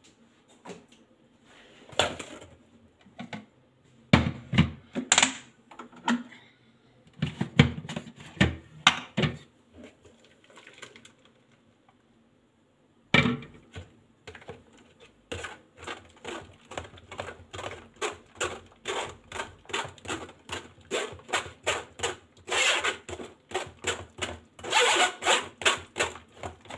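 A metal spoon scraping and pressing blended fruit pulp through a metal mesh sieve in quick repeated strokes, about two or three a second, from about halfway in. Before that come scattered knocks and clatter of kitchen things being handled.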